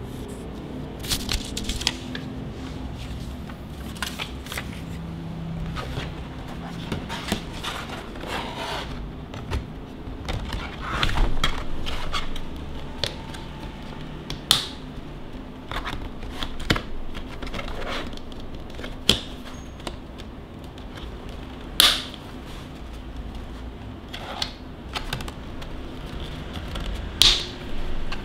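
Hands handling a paper instruction sheet and then unfolding the stiff plastic panels of a folding mini photo studio box: rustling, scraping and flexing with frequent sharp clicks and snaps. The three loudest snaps come about halfway through, about three quarters through and near the end.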